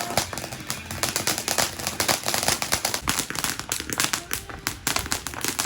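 Consumer firework crackling: a dense, fast run of sharp pops, many each second.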